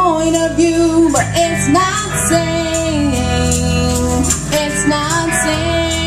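Live band playing, a female voice singing the melody over guitars, bass and drums.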